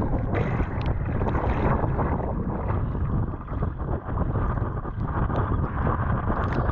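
Wind buffeting the microphone of a deck-mounted action camera on a surfski moving at about 11 km/h, over water rushing along the hull and the splashes of the double-bladed paddle dipping in on alternate sides.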